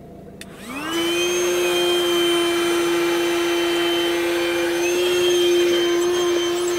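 Small electric air pump, powered from the car, switching on just under a second in and inflating an air mattress. Its whine rises quickly to a steady pitch and holds.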